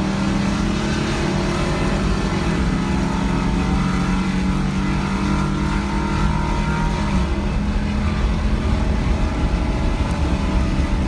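Vehicle engine and road noise heard from inside a moving car, the engine note climbing slowly for about seven seconds and then holding steady.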